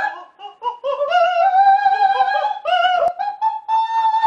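A man singing very high, shrill held notes as vocal practice of high notes, sliding up into a long sustained note and then stepping up to an even higher one near the end.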